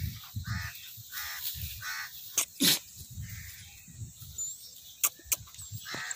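Crows cawing, a string of short, harsh calls spaced about a second apart, with a few sharp knocks, the loudest about two and a half seconds in.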